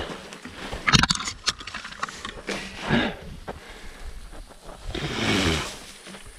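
Specialized Levo electric mountain bike riding a rough dirt trail: knocks and rattles from the bike over the ground, with wind on the microphone. A few low groans from the rider come about three seconds in, and a longer one near the end.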